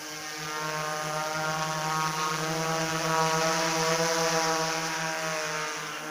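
Hexacopter drone with six U7 motors and 18-inch propellers flying, a steady multi-pitched buzz over a rushing hiss from the props. It grows louder toward the middle as it comes closest, then fades near the end.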